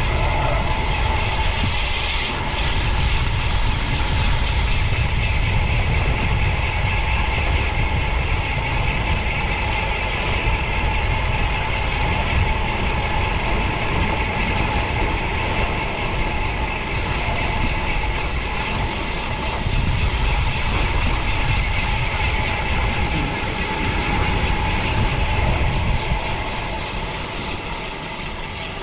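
Wind rushing over the microphone of a camera on a road bike descending at speed: a constant heavy rumble with a steady whine over it.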